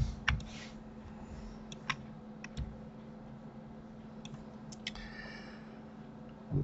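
Scattered short clicks from a computer mouse and keyboard as buttons are pressed and the scroll wheel is turned, over a steady low hum.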